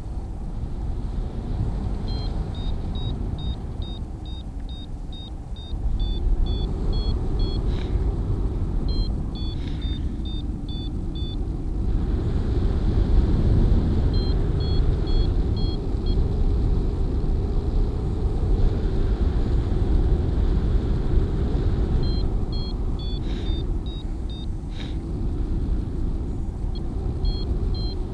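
Strong wind rushing over the microphone as a steady low rumble. Over it a flight variometer beeps in quick runs of short high tones that step up and down in pitch, coming and going in several patches, which is its signal of rising air.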